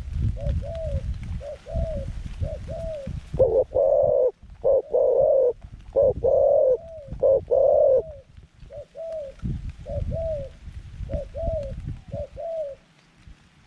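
Zebra doves cooing over and over, a mix of short clipped notes and longer, louder coos, as a decoy dove calls in a wild bird. A low rumbling noise sits underneath in parts.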